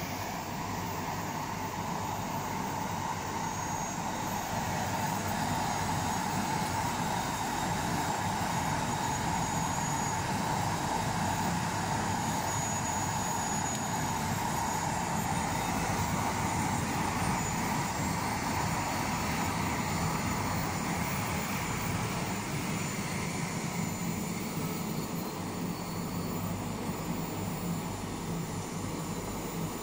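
Heller 1809MKIII reflow oven's convection blower fans running with a steady whoosh, the oven up at soldering temperature. The whoosh grows a little louder a few seconds in and eases off in the last several seconds.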